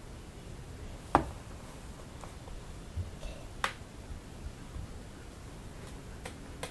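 A few sharp clicks over a low steady hiss: a loud one about a second in, another a little past three and a half seconds, and fainter ticks between and near the end.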